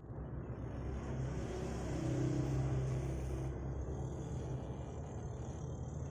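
A domestic cat snoring in its sleep: a low rumble that grows louder about a second in and eases off after about three and a half seconds.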